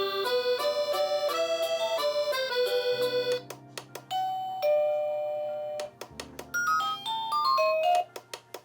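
Digital alarm clock's built-in alarm melodies playing as simple electronic chime-like tunes, switching abruptly to a different short tune about three seconds in and again around six and eight seconds.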